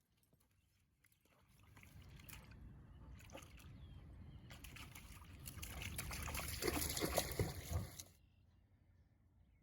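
Water sloshing and splashing with small clicks, building over several seconds and then cutting off suddenly.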